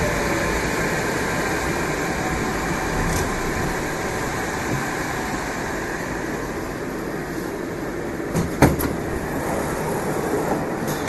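Moscow metro train of type 81-765/766/767 "Moskva" running between stations: a steady rail rumble with a few sharp knocks about eight and a half seconds in.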